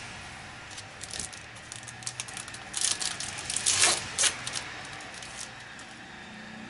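Trading-card pack wrapper crinkling and cards being handled: scattered clicks and rustles, with a cluster of sharp crackles in the middle.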